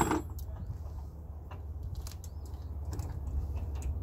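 Scattered light metallic clicks and clinks from a trailer hitch being worked by hand, with a louder clatter right at the start, over a steady low rumble.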